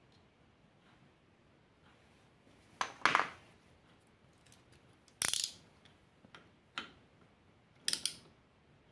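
Hand tools clinking and clattering in a few short metallic bursts, the loudest about three seconds in, then three more in the next five seconds.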